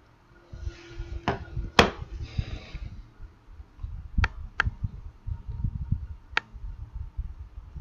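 Several sharp computer mouse clicks, spaced a second or two apart, with a quick pair a little past four seconds in. Beneath them runs a low, uneven rumble.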